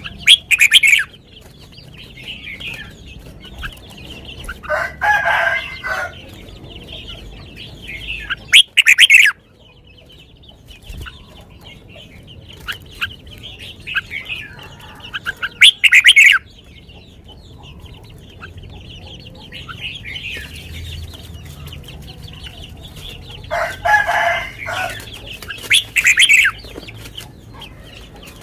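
Red-whiskered bulbul singing loud short song phrases, four of them spaced several seconds apart, over steady lighter chirping. Chickens cluck in the background.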